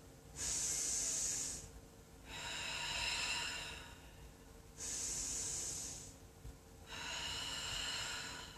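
A woman breathing slowly, deeply and audibly during a held yoga pose: two full in-and-out breaths, each breath a long airy rush of one to two seconds.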